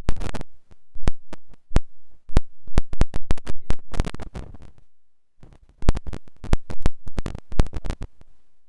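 Computer keyboard keystrokes clacking in quick irregular runs, with a short pause about five seconds in.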